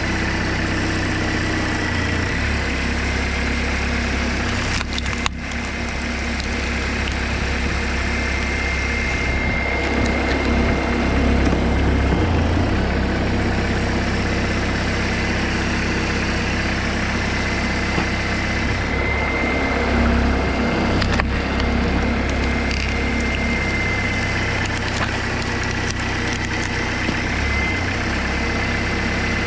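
Tractor engine running steadily to power a homemade hydraulic log splitter, growing louder a few times as the ram pushes logs through the wedge, with wood cracking and splitting.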